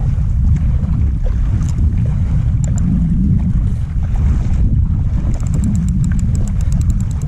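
Wind buffeting the microphone, a loud, steady low rumble, with a fast run of light clicks near the end.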